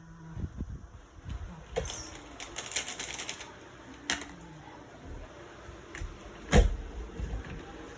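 Clicks and knocks from handling a small plastic mini blender, with a quick run of sharp clicks a little before the middle and one loud knock about six and a half seconds in.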